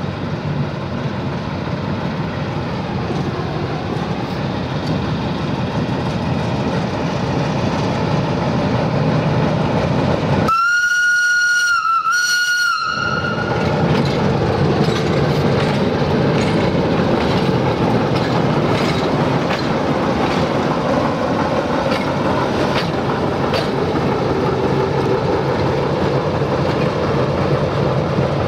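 A 060-DA (LDE2100) diesel-electric locomotive's engine runs steadily as the locomotive shunts slowly. About ten seconds in, its high-pitched whistle gives two short blasts run together, about two and a half seconds in all. Later the wheels click over rail joints.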